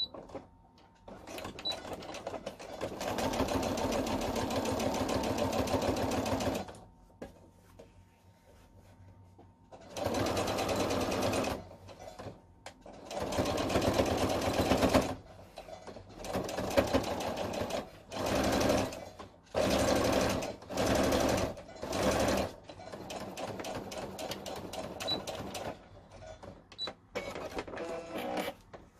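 Sewing machine stitching in about eight runs separated by short pauses; the longest run, about five seconds, comes near the start and the rest last a second or two. It is edge-stitching (topstitching) the outer face of a two-layer cotton mask.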